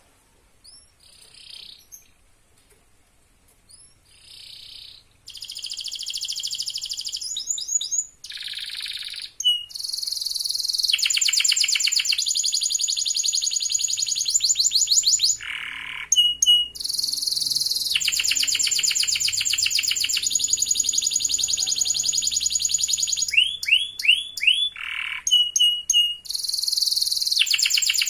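A domestic canary singing: a few soft chirps first, then from about five seconds in a long, high-pitched song of rapid trills and rolling phrases, broken by short pauses and a run of quick down-slurred notes near the end.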